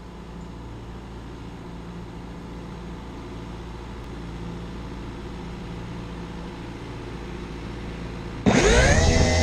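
A John Deere 2140 tractor's diesel engine running steadily at a distance, growing slowly louder as it comes closer. About eight and a half seconds in, a quadcopter drone's electric motors and propellers spin up suddenly into a loud whine that rises in pitch and then holds steady as it takes off; this is the loudest sound.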